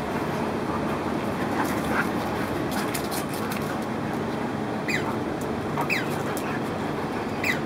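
Two play-fighting dogs, a saluki type and a German shepherd type, giving a few short high yips that fall in pitch, over a steady background hiss.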